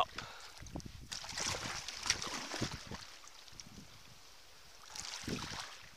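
Kayak paddle strokes in shallow water: irregular splashing and dripping for the first few seconds, a quieter glide, then another stroke about five seconds in.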